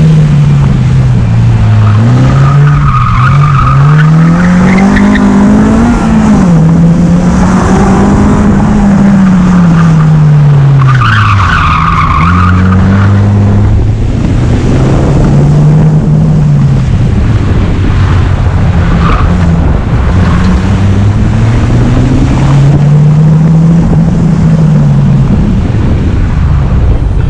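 Honda Civic SiR engine revving hard, its pitch climbing and dropping again and again as the car accelerates, shifts and brakes between cones, with the tyres squealing in several bursts through the corners. Heard from inside the car.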